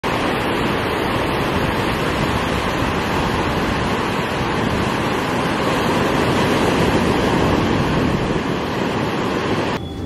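Ocean surf: small waves breaking and washing up a sandy beach, a steady rushing noise that cuts off abruptly just before the end.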